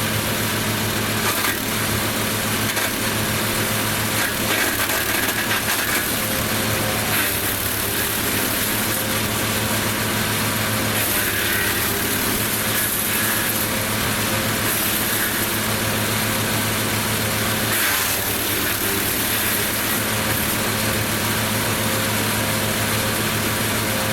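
Lumag Rambo HC15 garden wood chipper running steadily at a constant engine pitch, with a few short cracks of branches going through the cutter.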